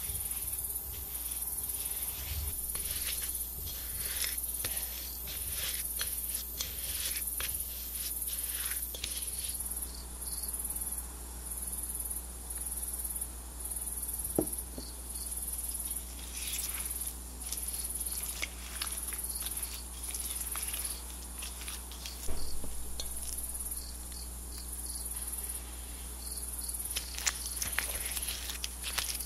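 Silicone spatula scraping and beating butter and sugar against the sides of a glass mixing bowl, a steady run of strokes with a couple of sharper knocks along the way.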